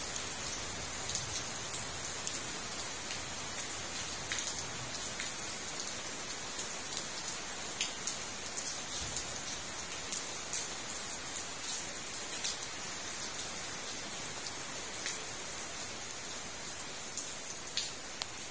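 Steady rain falling on a fish pond: an even hiss with scattered sharp ticks of single drops landing close by.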